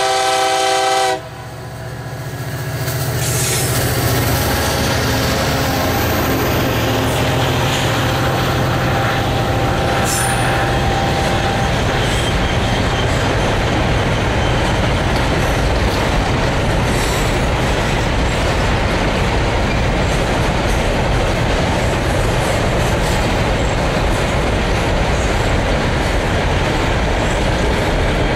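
Air horn of a leading EMD SD70ACe-BB diesel-electric locomotive, cut off sharply about a second in. The locomotives' engines then rumble past, followed by a long string of freight wagons rolling by with steady, loud wheel-on-rail noise.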